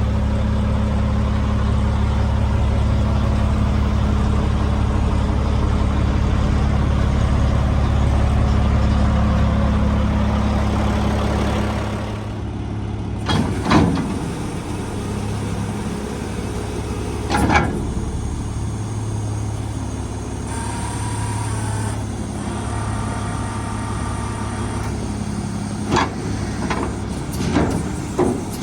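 2007 American LaFrance garbage truck's diesel engine running steadily. About twelve seconds in the sound changes and gets a little quieter, and a few short sharp air-release bursts follow.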